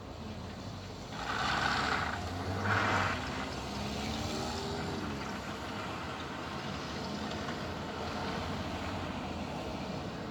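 Blizzard wind blowing steadily, with two louder rushing gusts about a second and about three seconds in.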